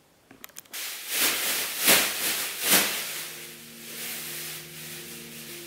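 A few clicks, then a loud hissing noise that swells three times and dies away, followed by soft, sustained musical notes that begin about three seconds in.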